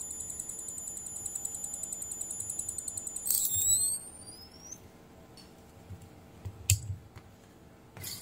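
500 W 12 V-to-220 V inverter board giving a high-pitched, rapidly pulsing whine, which the repairer takes for a short circuit making the circuit start, shut off and restart. A little over three seconds in, the whine slides in pitch and dies away as the battery leads are taken off. A few sharp clicks follow.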